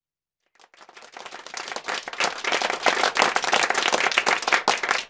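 An audience applauding, with many hands clapping at once: it starts from silence about half a second in, swells up, and begins to thin out near the end.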